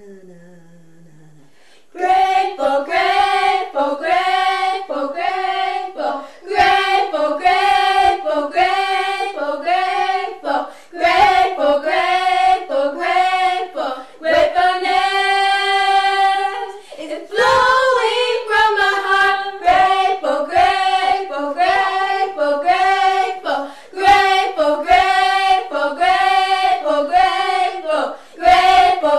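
A woman singing a slow worship song, starting about two seconds in, with a long held note about halfway through.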